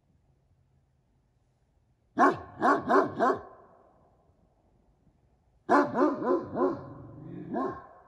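Central Asian Shepherd Dog (Alabai) alarm barking at animals heard in the woods: a quick run of four barks about two seconds in, then after a pause another run of about five, the last one a little apart near the end.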